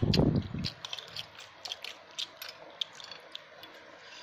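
Metal forks and a spoon clicking and scraping on a ceramic plate in quick, irregular ticks while leftover noodles are gathered up. A short low rumble comes right at the start.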